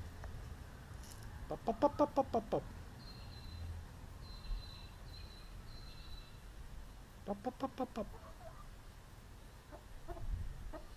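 Silkie chicken clucking in two quick runs of rapid notes, about two seconds in and again past the middle. Faint high whistled bird calls come between them.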